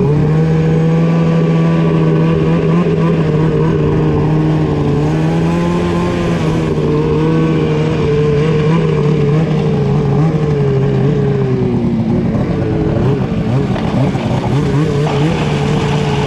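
Polaris Pro RMK 850 snowmobile's two-stroke twin engine running steadily at part throttle, around 4,000 to 4,700 rpm, with track and snow rush beneath it. The engine note wavers and eases off somewhat about three-quarters of the way through.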